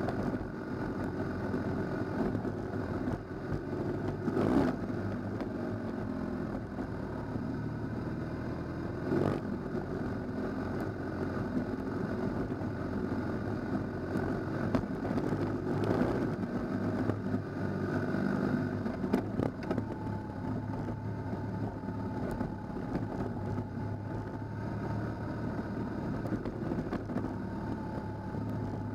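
Motorcycle engine running steadily while riding on a gravel road, with small changes in pitch and a few short knocks, the loudest about 4, 9 and 16 seconds in.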